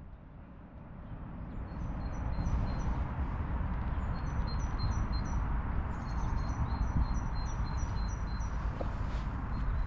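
A small bird calling over and over, a steady series of short high chirps about two a second, starting a second or two in, over a constant low rush of outdoor noise.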